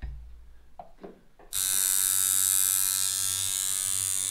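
Rotary tattoo machine switched on about one and a half seconds in, then running with a steady buzz, its voltage turned down to about 6 for packing black. A few faint knocks of handling come before it starts.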